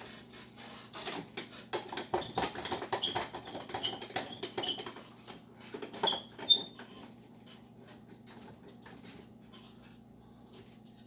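Wooden hive frame parts being handled and pressed together at the corner joint: a string of light clicks, knocks and scrapes with a few short squeaks of wood on wood. After about seven seconds this dies down to a faint steady hum.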